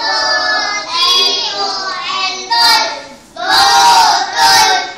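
A group of young children chanting aloud together in sing-song unison, reciting on the teacher's cue, in phrases with a short break about three seconds in.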